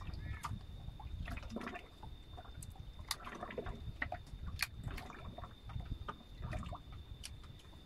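Small waves lapping and slapping against a fishing boat's hull, in irregular light splashes and clicks over a low rumble. A faint, steady, high-pitched whine runs underneath.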